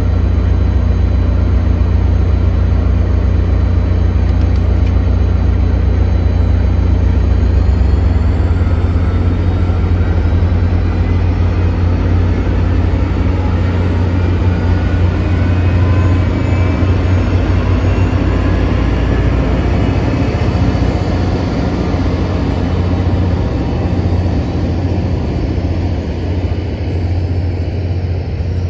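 Caltrain EMD F40PH diesel locomotive pulling a passenger train away: a loud steady engine drone, with a thin whine rising in pitch as the train gathers speed, easing off near the end as the cars roll by.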